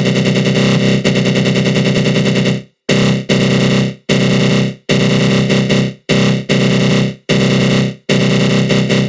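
Synthesized attack-growl sound effect: a harsh, rapidly fluttering synth buzz with a flanger on it. It holds steady for the first couple of seconds, then breaks into bursts about a second long with short gaps between them.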